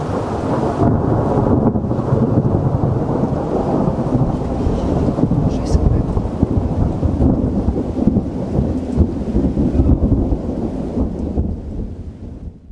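A long rolling rumble of thunder that swells in the first second and goes on without a break, with rain falling.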